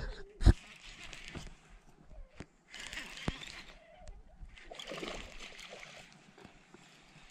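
Baitcasting reel being cranked in two bouts of a second or two, with a loud knock of handling on the rod near the start and water splashing where the line meets the lake.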